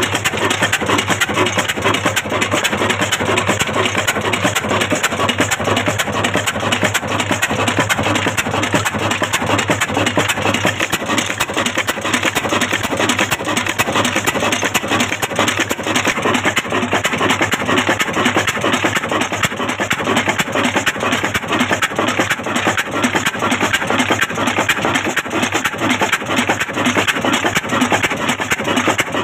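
22 HP Fazal diesel engine, a Ruston Hornsby-type old horizontal diesel, running steadily with a rapid, even beat.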